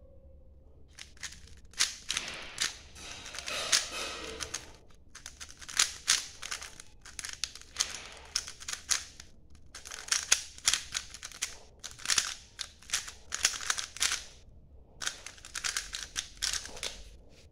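3×3 speed cube being turned fast in the hands, its plastic layers clicking and clacking in quick runs separated by short pauses of a fraction of a second, as in a timed speedsolve.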